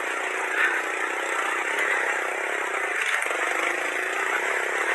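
Motorcycle engine running at a steady pitch while the bike is ridden, over a constant haze of road and wind noise.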